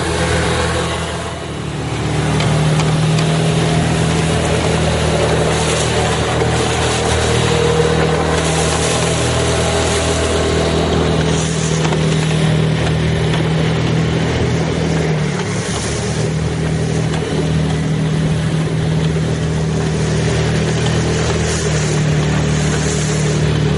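Small Mercury outboard motor running steadily at high throttle, with water rushing past the hull and wind on the microphone. The engine drops back briefly about a second in, then picks up again.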